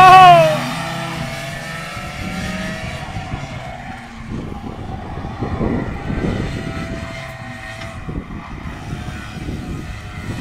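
Two 125cc two-stroke racing karts passing close at high revs. Their engine note peaks and drops in pitch in the first half-second, then fades to a faint, wavering whine as they run off around the far side of the track.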